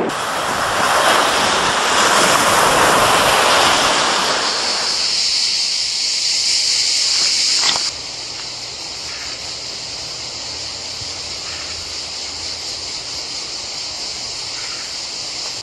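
Sea surf washing on a beach with wind. A steady high cicada chorus rises over it, and after a sudden drop in level about eight seconds in the cicadas carry on alone in a pine wood.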